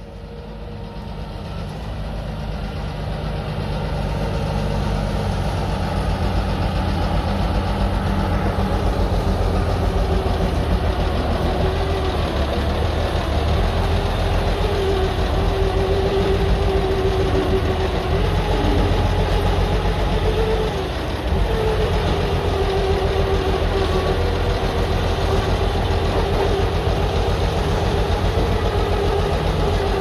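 Motor grader's diesel engine idling steadily, a low rumble under a wavering drone, fading in over the first few seconds.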